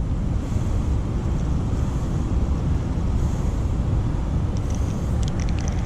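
Steady rushing roar of water pouring over a spillway, heaviest in the low rumble.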